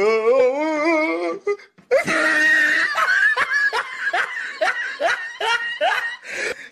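Loud laughter. A drawn-out, wavering vocal sound comes first, and after a short break it turns into a run of repeated laughing bursts, about two or three a second.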